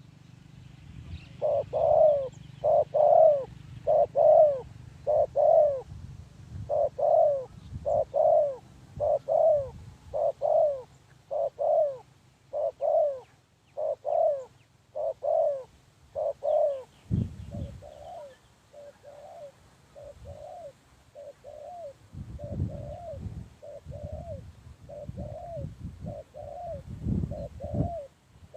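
Spotted dove cooing, a long run of short, evenly spaced coo notes. The notes are loud at first and softer from about halfway through, with low rumbling underneath in places.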